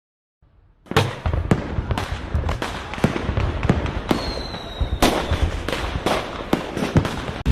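Fireworks going off: an irregular run of sharp bangs and pops, several a second, over a steady crackle, starting about a second in. A brief faint whistle comes midway.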